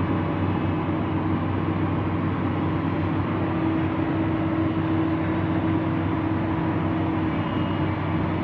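Heavy diesel machinery engine running steadily under load. A steady whine sits over the low engine note and grows louder around the middle.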